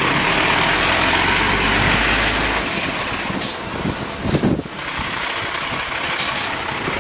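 Rear-loader garbage truck running, with a dense steady hiss over a low engine drone; the drone drops away about three seconds in, and a short, louder sound that rises and falls in pitch comes about a second and a half later.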